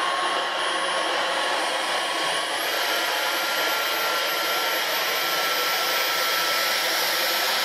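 Dyson V15 Detect cordless stick vacuum running on tile with its laser hard-floor head, picking up spilled tea leaves: a steady rush of suction with a high motor whine. The whine steps up in pitch about two and a half seconds in, as auto mode raises suction on the debris.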